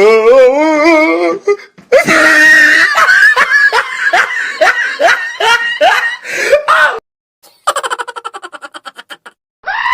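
A string of short meme sound-effect clips: a wavering, warbling voice for a second or so, then a long burst of hearty laughter lasting about five seconds. After a short gap comes a rapid even run of clicks, about ten a second, and a new steady pitched sound begins right at the end.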